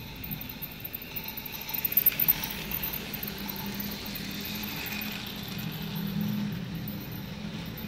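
Toy train running on plastic track: a small electric motor humming steadily under the rattle and clicking of gears and wheels. A burst of sharp, louder clicks comes about two seconds in as the cars roll past close by.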